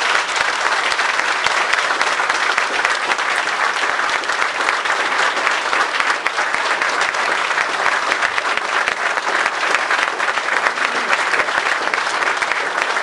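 A roomful of people applauding steadily at the end of a speech.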